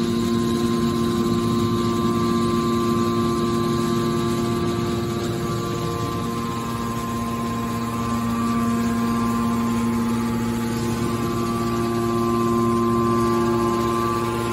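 Hydraulic can baler running: its electric motor and hydraulic pump give a steady hum and whine, which eases briefly about six seconds in and then picks up again.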